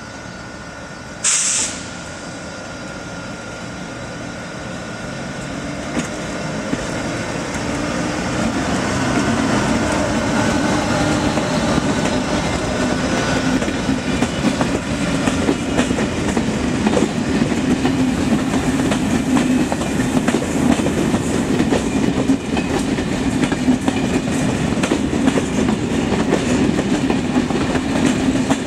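SNCF BB 26000 'Sybic' electric locomotive pulling a Corail Téoz train away from the platform, with a brief loud hiss about a second in. A steady high whine is heard as it gets under way. Then the coaches roll past, with a rumble and wheel clatter growing louder.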